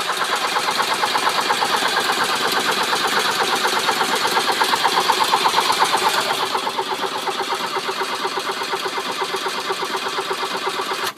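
Volkswagen Vanagon's 1.6 diesel engine being cranked by the starter motor, turning over strongly in an even, rapid rhythm without catching, then stopping suddenly near the end. It cranks well but won't start, even with freshly replaced glow plugs.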